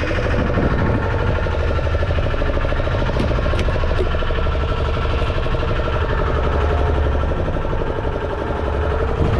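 Fishing boat's engine running steadily at low revs, a constant low drone with a pitched hum, with a few faint clicks about three and four seconds in.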